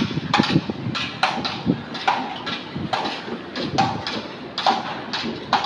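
Footsteps on the steel mesh grating walkway of a tower crane's jib, at a steady walking pace of a little more than one step a second.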